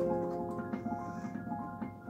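Piano being played: a quick figure of short high notes struck one after another over held lower notes, getting gradually softer.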